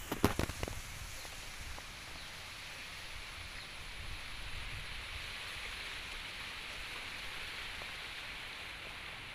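A quick run of light knocks and rattles in the first second, then a steady outdoor background hiss.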